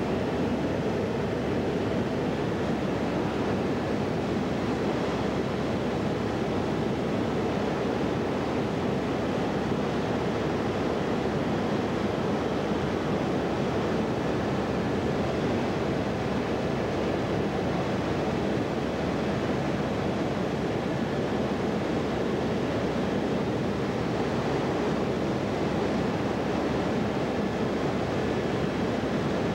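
Helicopter cabin noise in flight: a steady, unchanging drone of engine and rotors with faint steady whine tones above it.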